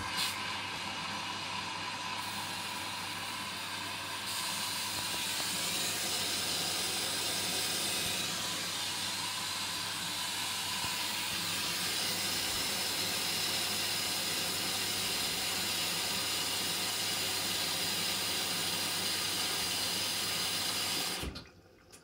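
Hoover Dynamic washing machine taking in water during the main wash: a steady hiss of water rushing in through the inlet valve, over a low hum. It starts suddenly and cuts off about a second before the end.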